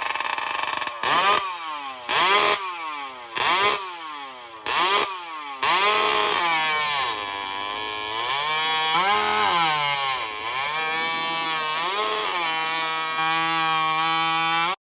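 Vintage two-stroke chainsaw engine revved in about five quick blips, roughly one a second, then held at high speed with its pitch sagging and recovering several times before settling steady. The sound cuts off abruptly near the end.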